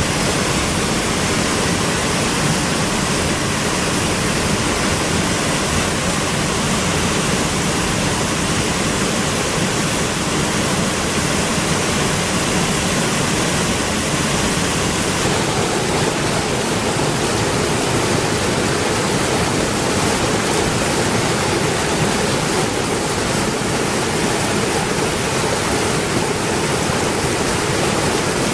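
Waterfall: a steady, loud rush of falling and churning water. Its tone shifts slightly about halfway through.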